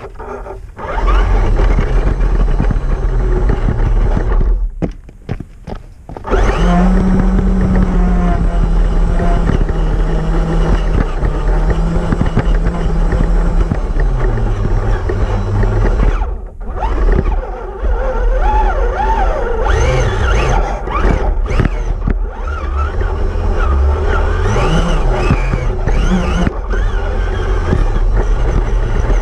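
Onboard sound of an Element RC Gatekeeper crawler driving over sand and gravel: its electric motor and gears whine, the pitch rising and falling with the throttle, over a steady rumble and rattle from the chassis. The sound drops away briefly twice, around five seconds in and again past the middle, when the throttle is let off.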